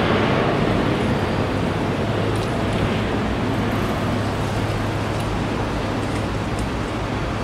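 Airbus A350's twin Rolls-Royce Trent XWB turbofans at climb power after takeoff, a steady jet rumble slowly fading as the airliner climbs away.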